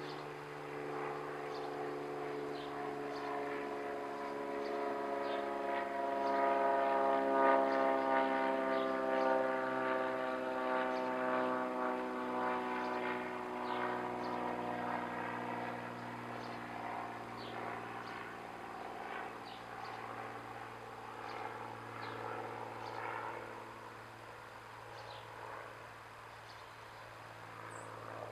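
A passing engine's steady drone, its pitch sliding slowly down; it grows louder to a peak about eight seconds in, then fades away.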